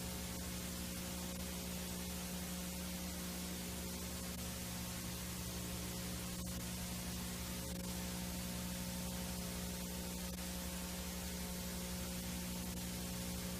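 VHS tape static: a steady hiss over a low electrical hum, with a couple of faint ticks around the middle.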